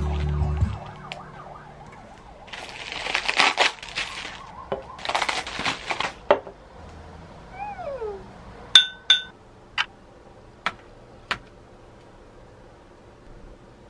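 Plastic bubble wrap crinkling and rustling in two bursts as it is pulled off glass dessert bowls. Then a glass bowl clinks with a short ring, followed by a few sharp taps.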